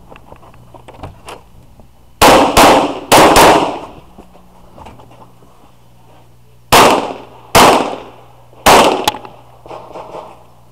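Glock pistol fired seven times: four quick shots about two seconds in, then three more about a second apart later on.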